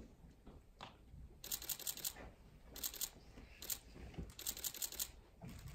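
Five or so short bursts of rapid, crisp clicking, the first about a second and a half in, over a quiet room.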